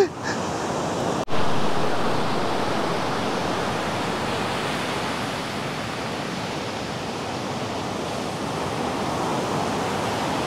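Steady rush of ocean surf washing onto a beach, broken by a brief dropout about a second in.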